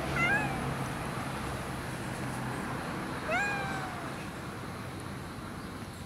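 A brown tabby cat meowing twice: a short meow right at the start and a longer one, rising then falling, a little over three seconds later.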